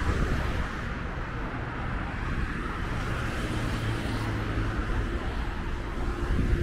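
Road traffic going past on a multi-lane city highway, a steady noisy rumble, with a vehicle's engine hum joining about halfway through.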